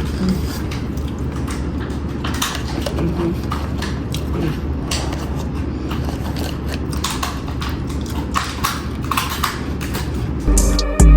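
Crunching and crackling as potato chips and nuts are eaten and their packets handled: many short, sharp crackles over a steady low hum. Loud music with a beat comes in near the end.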